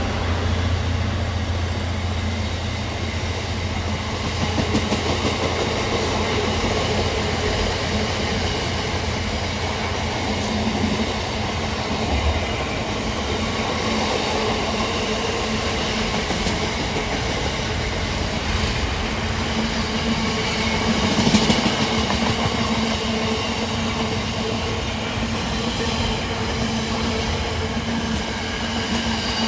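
Freight train passing close by: a low engine drone for about the first twelve seconds, then the steady rolling and clatter of wagon wheels on the rails, briefly louder about twenty-one seconds in.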